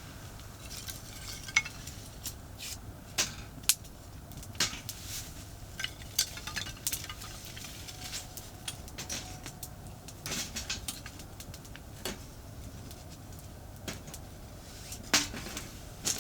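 Wood fire crackling, with irregular sharp snaps and pops, a few of them loud, over the steady low rumble of distant highway traffic.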